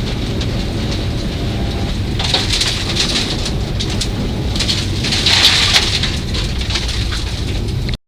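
Rally car at speed on a gravel stage, heard from inside the cabin: the engine runs hard under a steady hiss and rattle of gravel spraying the underbody and wheel arches, swelling twice. It cuts off suddenly near the end.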